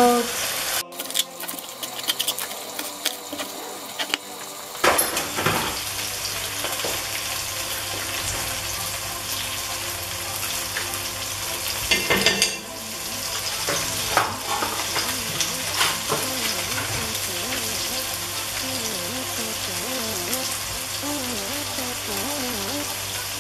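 Chicken pieces and cherry tomatoes sizzling in oil in a pot, stirred with a wooden spatula, with a few knocks of utensils against the pot.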